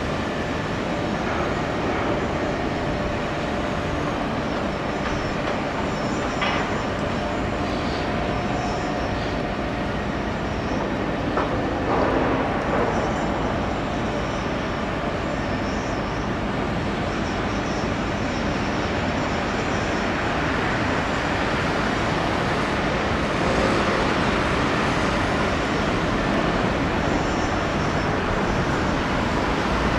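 Steady outdoor background noise: a continuous rumble and hiss like distant traffic and industrial activity, with a couple of faint knocks about six and eleven seconds in.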